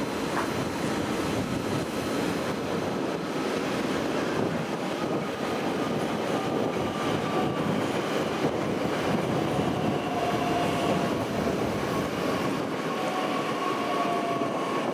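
DB Class 442 (Bombardier Talent 2) electric multiple unit running into the station, a steady rumble of wheels on rail. From about halfway, faint high whining tones join in, falling slightly in pitch.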